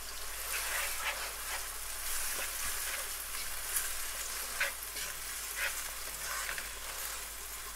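Sliced onions sizzling in hot oil in a nonstick pan as a wooden spoon stirs them, with a few brief scrapes and taps of the spoon against the pan.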